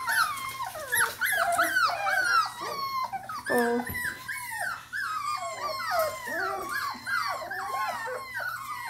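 A litter of young Norwegian Buhund puppies, about four and a half weeks old, whining and yipping together: many short high calls that rise and fall and overlap without a break.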